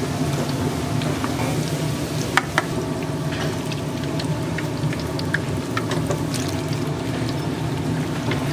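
Twigim (Korean battered fritters) deep-frying in oil: a steady sizzle with scattered sharp pops, over a steady low hum. Two louder cracks come close together about two and a half seconds in.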